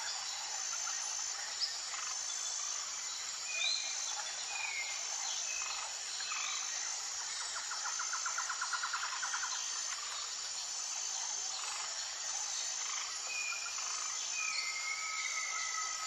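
Tropical jungle ambience: assorted birds whistling and calling in short notes and slides over a steady insect chorus. A high insect note repeats a little more than once a second, a rapid buzzing trill comes about halfway through, and a long held whistle comes near the end.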